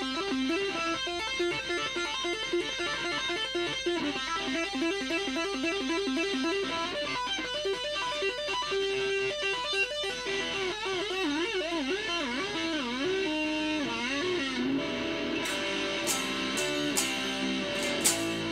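Ibanez PGM100 electric guitar played through distortion: a fast, repeating run of notes, then, about ten seconds in, notes bent with wide vibrato. Held notes and a few sharp clicks follow near the end.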